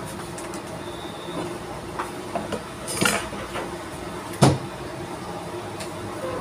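Kitchen clatter: a few scattered clinks and knocks of pots and utensils, the loudest a solid knock about four and a half seconds in, over a steady low hum.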